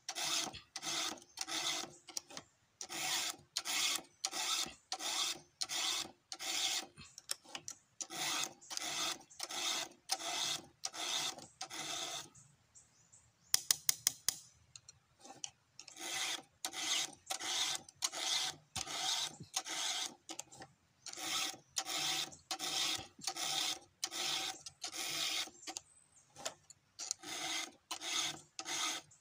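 Round chainsaw file rasping across the cutters of a chainsaw chain in quick, even strokes, about two or three a second, sharpening the chain by hand. About twelve seconds in the filing pauses for a few seconds, broken by a few sharp clicks, then the strokes resume.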